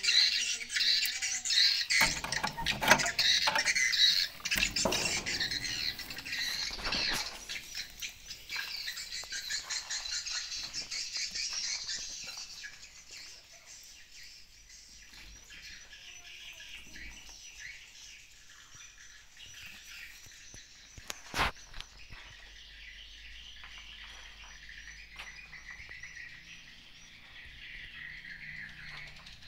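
Dense, high chirping and twittering of edible-nest swiftlets, loud for the first dozen seconds and then fainter. A few knocks sound in the first several seconds, and one sharp click about two-thirds of the way through.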